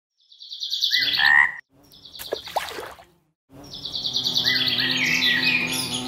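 Rapid, high trilling animal calls with short chirps, like a frog or insect chorus with birds, in three bursts cut apart by brief silences; a low steady hum runs under the last burst.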